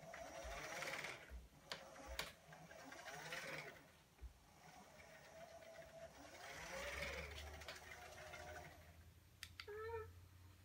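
A life-size R2-D2 replica's electric drive motors whirring in three surges as the droid moves and turns in its upright stance, with a couple of sharp clicks. A short warbling electronic chirp comes near the end.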